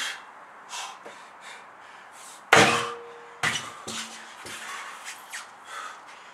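Heavy sledgehammer slamming down onto a large rubber tyre: one loud strike about two and a half seconds in with a short ringing tone, then a lighter knock about a second later and a couple of smaller knocks as the hammer settles. Hard breathing between the strikes.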